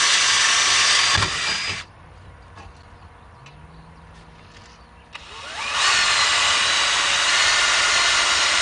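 Cordless Bosch drill with a 1/8-inch bit boring pilot holes through sheet metal: a high whine under load that stops about two seconds in. After a pause of about three seconds it spins up again with a rising whine and runs steadily.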